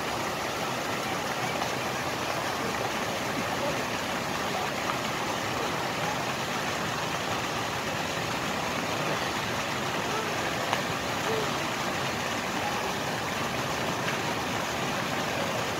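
Steady rush of water from fountain spouts pouring into a swimming pool.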